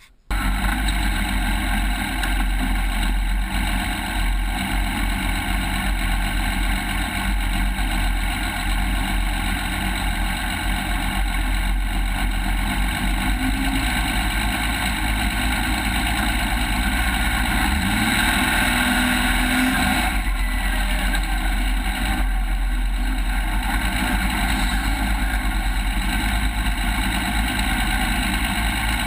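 Off-road race vehicle's engine running steadily at an even pitch, cutting in abruptly at the start.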